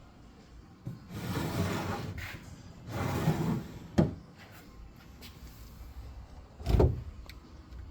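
Wooden sliding doors of an antique hinoki-wood mizuya tansu (Japanese kitchen chest) slid along their tracks twice, each a smooth rubbing slide of about a second. A sharp wooden knock follows about four seconds in, and a heavier thump near the end as a door or panel meets its stop.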